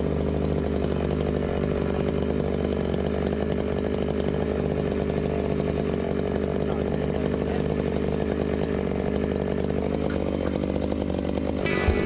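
An engine running steadily and loudly at an even speed, without revving up or down, on a tree-felling job.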